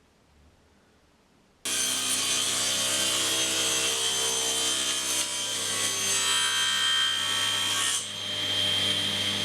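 Near silence, then a table saw cutting wood starts abruptly and runs steadily, the blade and motor making a steady whine with hiss. About eight seconds in the sound dips briefly and shifts as the cut changes.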